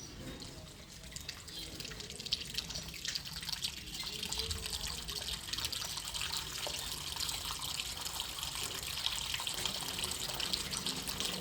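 Water running and splashing, a steady hiss with fine crackle that builds up over the first few seconds and then holds.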